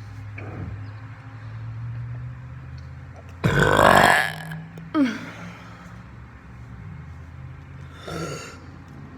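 A person burping: one long, loud burp about three and a half seconds in, then a short sound just after it and a fainter burp near the end.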